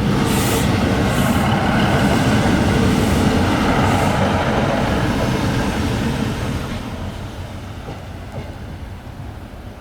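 Diesel passenger train on the Tyne Valley line running past on the rails, loud for about six seconds, then fading away.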